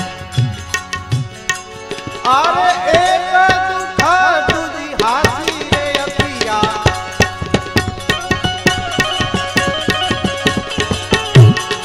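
Live bhajan accompaniment: tabla playing a quick rhythm over steady held harmonium tones. A gliding melodic phrase comes in about two to five seconds in, and a heavy low drum stroke sounds near the end.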